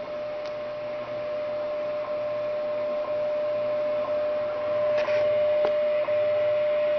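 A shortwave time-signal broadcast playing through a Philco 38-7XX console radio's speaker: a steady tone broken by a short tick about once a second, over background static.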